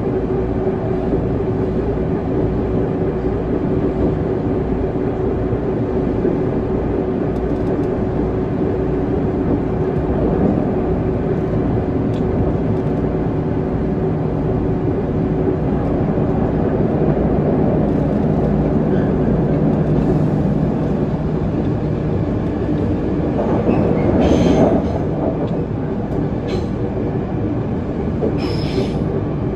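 Running sound inside a JR West 207 series electric train: a steady rumble of wheels on rail with a motor hum that changes pitch partway through, and two brief high-pitched squeals near the end.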